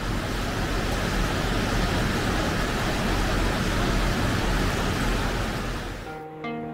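Steady rushing of a stream of running water, an even wash of noise. It fades down near the end as plucked, harp-like music comes in.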